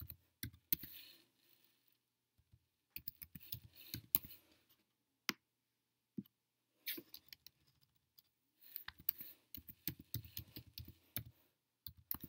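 Computer keyboard being typed on in short, faint runs of key clicks, with a few single clicks in between, as a username and password are entered.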